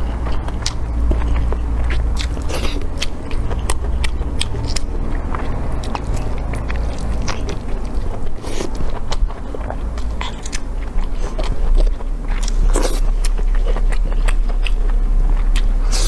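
Close-miked biting and chewing of pig intestine, with many short, sharp mouth clicks and smacks, and the food being handled and pulled apart, over a steady low hum.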